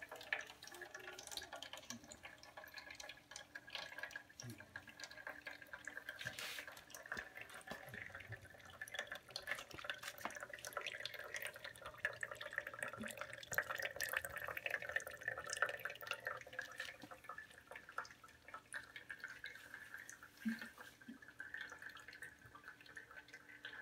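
Water dripping and trickling from cup to cup down a homemade water clock of stacked plastic cups: a faint, continuous, irregular patter of small drips.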